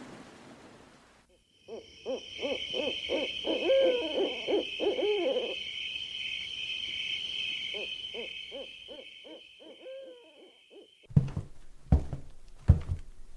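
Night sound effects: a steady high chirring of night insects with an owl hooting in two runs of quick repeated hoots. Near the end, several loud knocks, as on a door.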